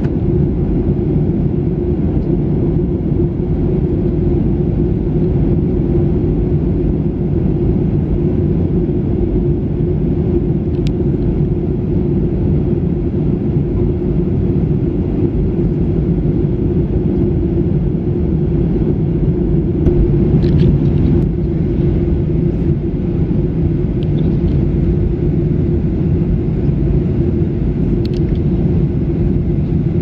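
Steady cabin drone of a Boeing 737-800 in cruise, its engine and airflow noise heard from a window seat as an even low rumble with a steady hum. A few faint ticks come through now and then.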